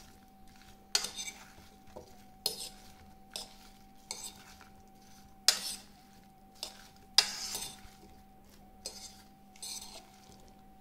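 A metal fork tossing watermelon cubes in a bowl: irregular scrapes and clinks of the fork against the bowl, every second or so, with a faint steady hum underneath.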